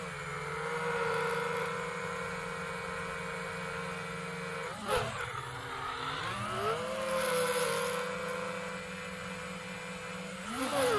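Brushless motors and propellers of a 5-inch FPV quadcopter whining steadily; about five seconds in, and again near the end, the pitch drops sharply and climbs back as the motor speed changes.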